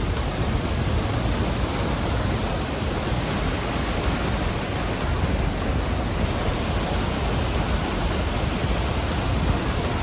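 Steady, dense rushing of a mountain creek's white water and waterfall cascades, with the creek running very high.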